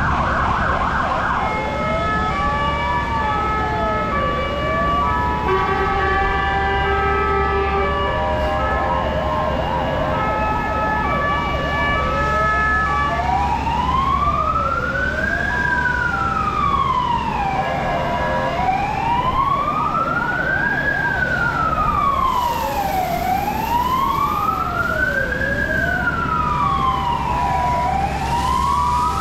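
Several fire engine sirens sounding at once: slow wails rising and falling about every five seconds overlap steady held tones and, twice, a short fast warble, over a steady low rumble.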